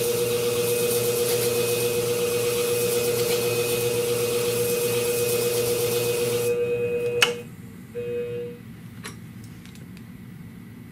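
Scimech flathone sharpening machine running with a steady hum while an Anvil grooming shear blade is honed on its spinning flat disc, a hiss of metal on the abrasive. About six and a half seconds in the hiss stops as the blade comes off the disc; a sharp click follows and the motor hum cuts off.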